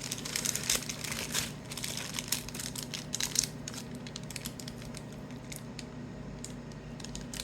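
Trading-card pack wrapper crinkling and crackling as it is handled and pulled open, in irregular bursts that are busiest over the first few seconds and thin out later.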